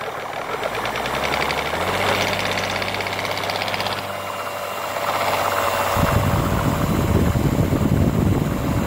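Drill spinning a rebuilt Eaton M45 Roots-type supercharger in reverse, the rotors running steadily and smoothly with no abnormal noise. A heavy low rumble joins about six seconds in.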